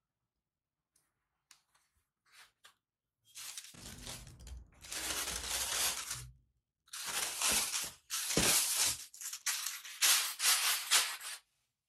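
Tissue paper rustling and crinkling as it is unfolded and pulled back from a pair of shoes in a cardboard shoebox, in several loud bursts starting about three seconds in, after a few faint taps.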